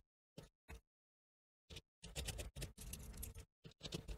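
Hands handling the plastic shell of an Echo Dot smart speaker while small screws are taken out of it and set down: a few light clicks, then about a second and a half of scraping and rattling from about halfway, then more clicks.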